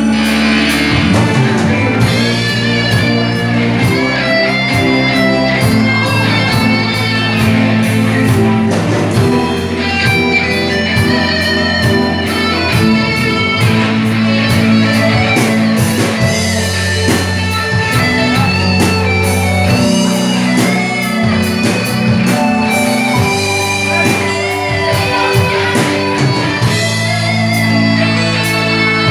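Instrumental passage of a rock ballad with no singing: electric guitar melody over steady bass and drums.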